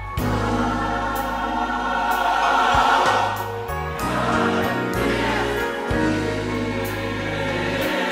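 Gospel song: a choir singing over a band, with sustained low notes and a steady beat.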